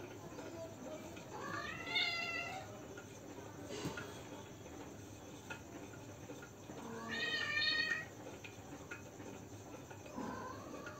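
Cat meowing three times: a rising-and-falling meow about two seconds in, a longer, louder meow around seven seconds in, and a shorter one near the end.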